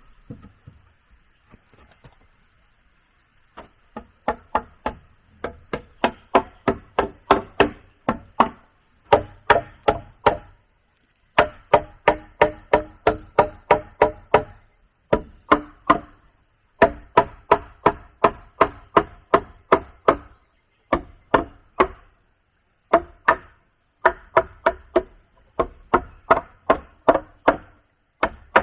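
A metal tool striking wood in quick runs of about three to four blows a second, with short pauses between runs; each blow rings briefly. Faint birdsong is heard before the blows begin.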